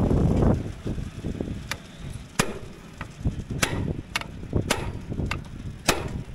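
Hammer blows on a hand impact driver set into a seized winch mounting screw: a run of sharp metal strikes, about two a second, starting a little over a second in. The screw does not free.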